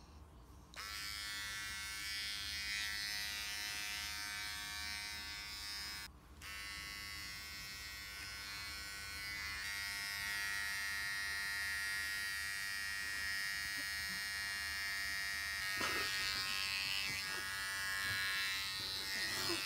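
Electric hair trimmer buzzing steadily. It switches on about a second in, cuts out briefly around six seconds in and starts again. Some rustling handling noise comes in near the end.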